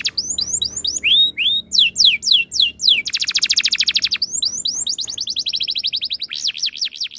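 Domestic canary singing loudly: quick down-sweeping whistled notes mixed with rapid rolling trills, with a long fast trill about three seconds in.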